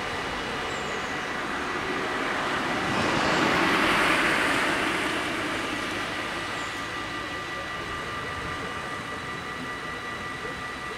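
Level-crossing warning bells ringing steadily. A passing vehicle's noise swells, peaks about four seconds in and fades.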